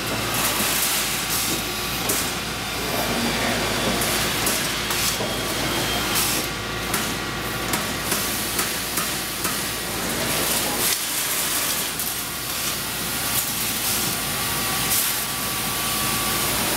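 Strippit Fabri Center 1000SX CNC turret punch press punching sheet metal: an irregular run of sharp metallic strikes, several close together at times, over a steady machine hiss and hum.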